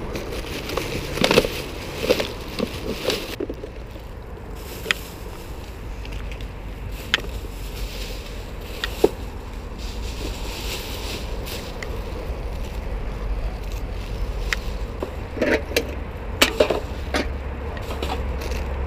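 Baby stroller's wheels rolling along a path: a steady rumble with scattered sharp clicks and short rattles.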